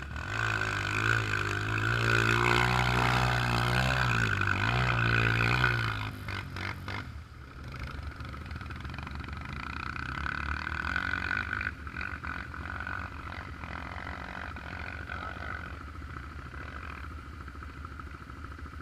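Single-cylinder four-stroke trail motorcycle engine revving hard under load on a climb for about six seconds, its pitch dipping briefly and coming back up. It then drops to a quieter, lower running sound with a few knocks.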